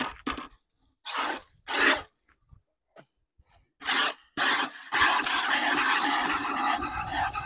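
Milk streams squirting into a plastic bucket as a water buffalo is milked by hand: three separate squirts, each a short hiss, then steady rapid squirting through the second half.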